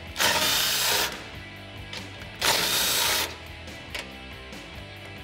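Cordless impact driver with a 19 mm socket hammering out factory frame bolts on a Toyota Tundra. It runs in two bursts of about a second each, at the start and about two and a half seconds in, loosening and backing out the bolts.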